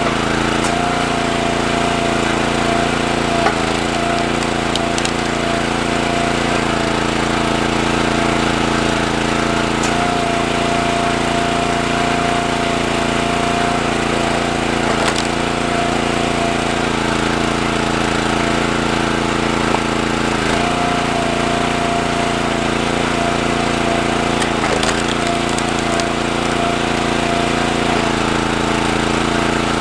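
Small gas engine of a County Line 40-ton hydraulic log splitter running steadily while splitting firewood. Its note dips briefly about every five seconds as the ram takes the load, with a few sharp cracks of wood giving way.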